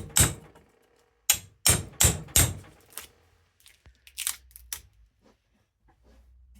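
Hammer striking metal: a single sharp blow, then a run of four blows about three a second with a brief metallic ring, and a few lighter taps around four seconds in.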